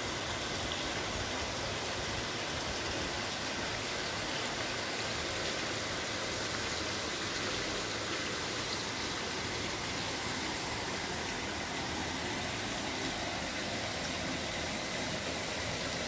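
Waterfall and stream water rushing steadily, an even unbroken hiss with no change in level.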